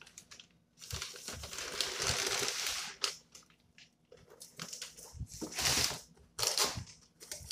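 Cardboard box being opened by hand: its flaps and packaging rustle and scrape, in a long spell a second or so in, then shorter ones near the end, with a few soft knocks.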